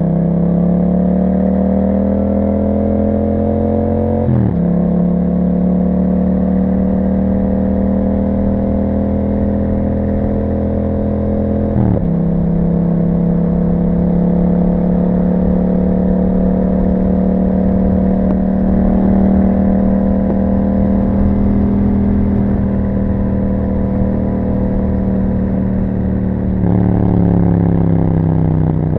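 Yamaha MT-07's 689 cc parallel-twin engine through an Akrapovic exhaust, ridden and pulling through the gears. The revs climb steadily and drop sharply at the gear changes about four and twelve seconds in. They then hold nearly level at a cruise and jump higher near the end.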